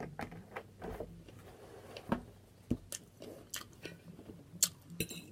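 A person chewing food close to the microphone, with wet mouth smacking and scattered sharp clicks.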